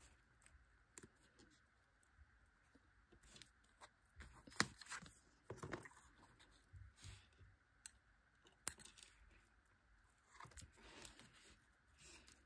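Near silence broken by faint, scattered small clicks and paper rustles from foam adhesive dots being picked off their backing sheet with a pointed weeding tool and pressed onto cardstock.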